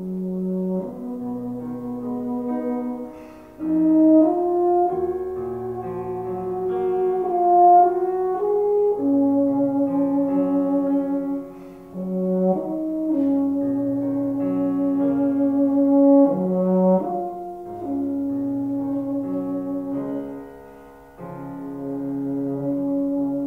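Solo euphonium playing a slow, lyrical melody of long held notes with vibrato over piano accompaniment. There are short breaks between phrases about 3.5, 12 and 21 seconds in.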